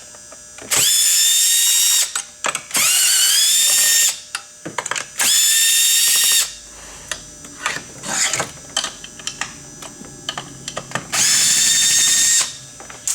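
Small electric power driver spinning up and running in four short bursts of about a second each, each one a rising then steady whine, with small clicks and knocks of handling between them.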